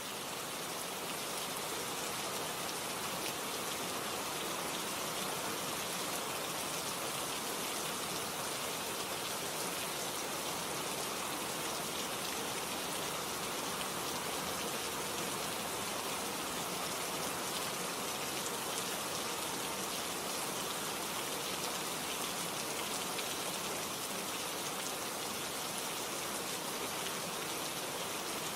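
Steady rain falling, a dense even hiss of countless drops pattering on surfaces, unchanging throughout.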